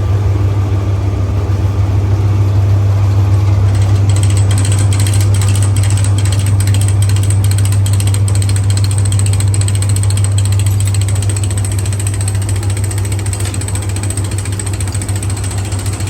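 Old Bedford truck's diesel engine running with a steady low drone. A rapid ticking clatter joins about four seconds in and fades out again after about eleven seconds.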